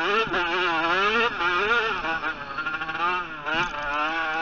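Motocross bike engine, heard from on board, revving up and down as the rider works the throttle through the ruts: the pitch climbs and drops again about five times, with quick falls between the climbs.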